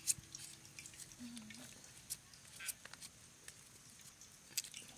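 Large kitchen knife peeling a raw sweet potato by hand: scattered soft scrapes and clicks as the blade cuts through the skin, the sharpest right at the start.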